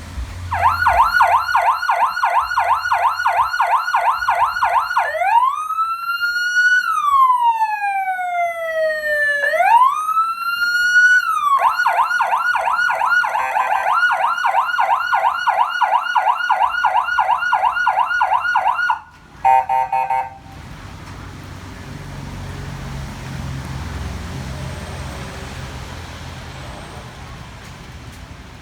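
Electronic emergency-vehicle siren running through its tones: a fast yelp warble, then a slow wail rising and falling, then the fast yelp again. About two-thirds of the way through it cuts off, a short burst of quick beeps sounds, and then only a low steady rumble remains.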